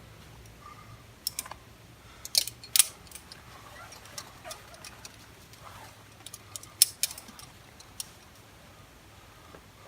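Metal climbing gear clinking: carabiners and quickdraws knocking together on a harness in scattered sharp clicks and jingles. The loudest come just under 3 seconds in and again around 7 seconds.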